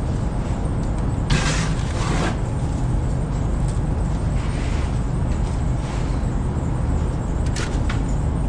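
A farm machine's engine running steadily with a low rumble. It is broken by two brief hissing bursts, one a little over a second in and one around the middle.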